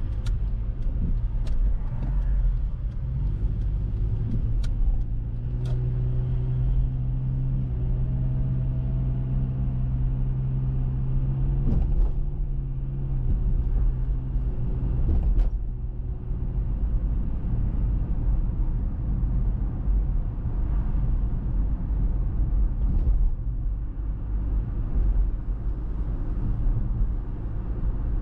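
Car driving on a town road: steady engine hum and tyre rumble, with a few short sharp knocks along the way.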